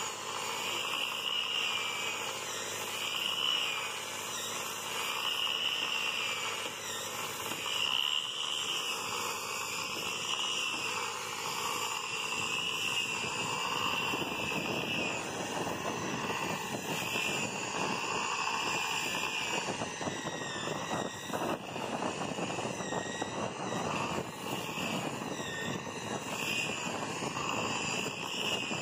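Air-driven disc sander with 60-grit sanding paper running against a wooden boat hull: a steady high whine that wavers as the pad is pressed and moved over the planks, under a scratchy sanding hiss that grows rougher in the second half.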